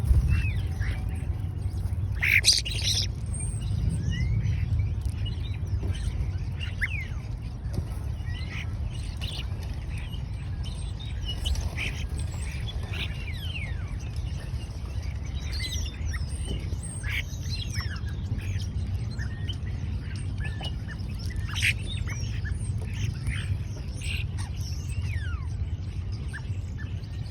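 Many small birds chirping and calling in quick, scattered short notes, over a steady low rumble.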